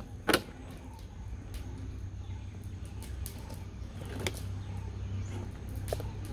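Traxxas TRX6 6x6 RC rock crawler's electric motor and drivetrain whirring steadily as it crawls slowly over rocks. A sharp knock comes about a third of a second in, with lighter clicks about four and six seconds in.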